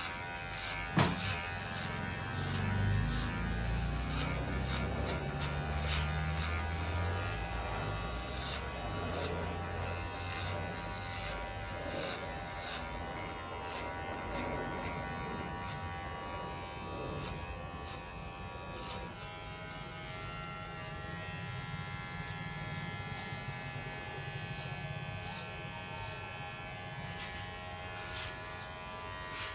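Electric hair clipper running with a steady buzz as it cuts short hair in a fade on the back and side of the head, with a sharp click about a second in.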